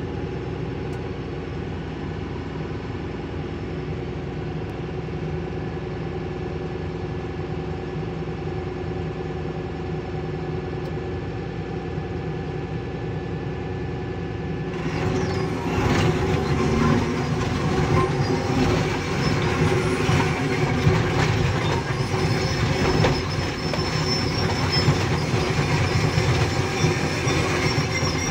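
Tata Hitachi excavator's diesel engine running steadily, heard from the cab. About fifteen seconds in it grows louder and rougher, with the clatter and squeal of the steel tracks as the machine travels along the rocky haul road.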